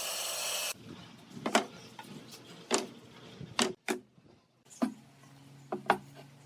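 A power tool's steady running noise cuts off abruptly under a second in, followed by a string of sharp knocks and clacks as wooden pieces are handled and set down.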